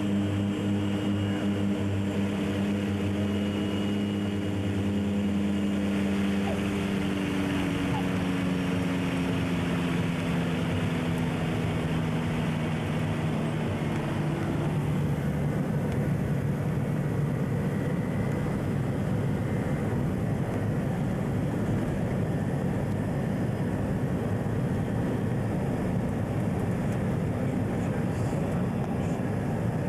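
Engine and propeller drone of a small propeller aircraft heard from inside the cabin. Its steady tone slowly falls in pitch between about a fifth and half of the way in, then gives way to a steady rushing noise.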